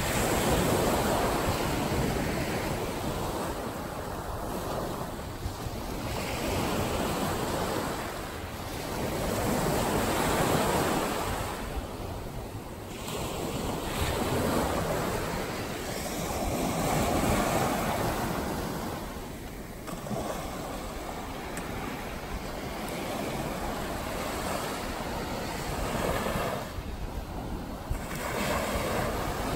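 Small ocean waves breaking and washing up a sandy beach, the surf swelling and fading every several seconds.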